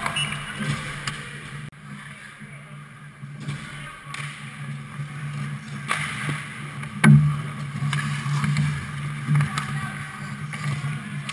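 Ice hockey play close to the goal: skates scraping the ice and sticks and puck clacking, with a sharp knock about six seconds in and a louder one about a second later, over a steady low hum.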